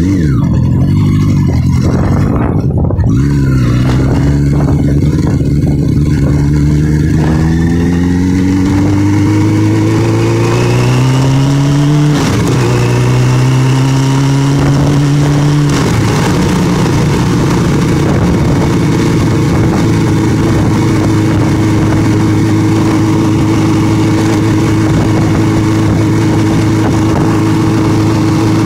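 Motorcycle engine under way, its pitch climbing steadily as it accelerates, dropping at a gear change about twelve seconds in, climbing again, then holding steady at cruising speed, with wind noise from riding.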